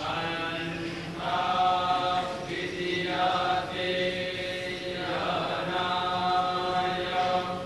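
Vedic recitation: male pundits chanting a mantra on a few held pitches, in long phrases with brief breaks between them.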